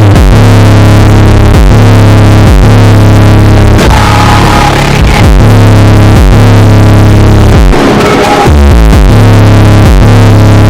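Loud electronic music: a heavy synthesizer bass line with a steady beat and higher synth notes over it.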